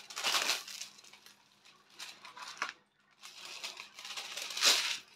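Stiff diamond-painting canvas and its plastic cover film crackling and rustling as they are handled, in three bouts, the loudest near the end.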